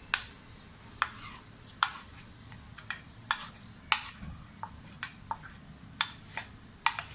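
A spoon clinking and scraping against a bowl as ground masala paste is scooped into it, about a dozen sharp, irregular clinks.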